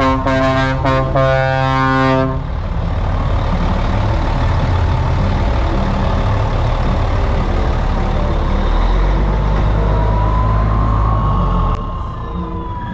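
Background music for about the first two seconds, then a Scania 112H truck's twin-turbo inline-six diesel running loud, with a faint whistle that rises and falls near the end.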